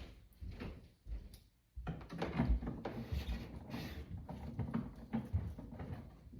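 Handling clatter: a run of short knocks and rattles, sparse at first and becoming dense and steady from about two seconds in.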